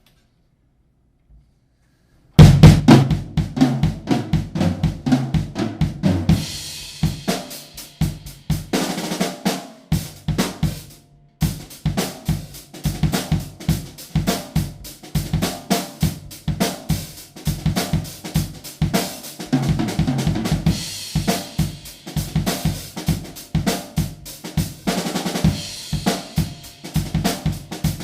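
Budget drum kit, retuned and fitted with new Aquarian heads, being played: snare, bass drum, toms, hi-hat and cymbals in a steady stream of beats and fills. It starts about two seconds in and stops briefly near the middle.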